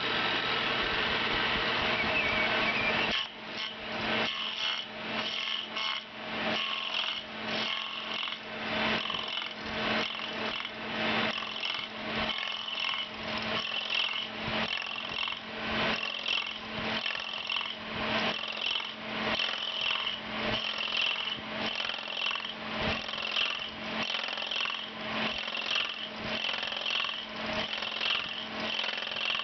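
Ober #11 copy lathe cutting a square hickory blank into an axe handle with its spinning cutter head. The machine runs steadily for about three seconds, then cuts in a regular pulsing rhythm, a little more than one bite a second, over a steady hum.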